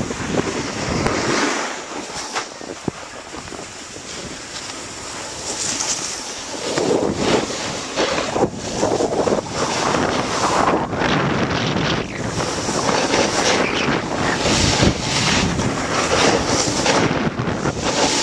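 Wind buffeting the microphone of a body-worn camera, mixed with the rough hiss and scrape of edges sliding over packed snow during a downhill run. It eases for a few seconds, then grows louder and rougher from about six seconds in.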